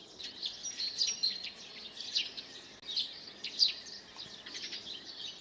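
Small birds chirping: many short, high chirps, several a second, without a break.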